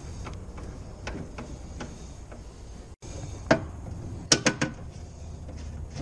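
Socket wrench and metal tools clicking and clinking on a car door's inner steel panel: a few faint scattered clicks, then a louder knock about three and a half seconds in and three sharp clicks in quick succession just after four seconds.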